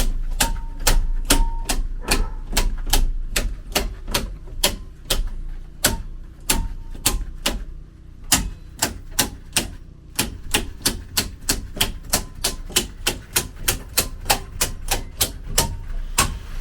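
Sharp, fairly regular clicking, about three to four clicks a second, over the low steady hum of a running Generac standby generator.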